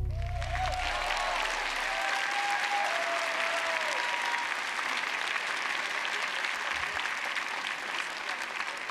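Audience applauding at the end of a live band's song, with the band's last low note dying away in the first two seconds. A few voices call out over the clapping early on, and the applause eases slightly near the end.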